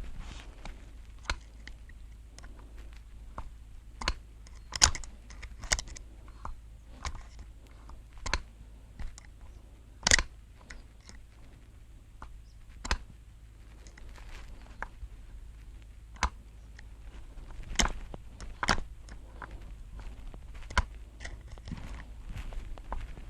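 Irregular clicks and knocks of hard parts and tools being handled, with the loudest knocks about five and ten seconds in.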